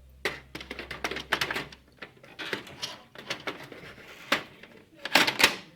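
CD-ROM and floppy drives being slid into the drive bays of a Dell OptiPlex 745C case: a string of plastic and metal clicks, knocks and short scrapes, with the loudest cluster near the end.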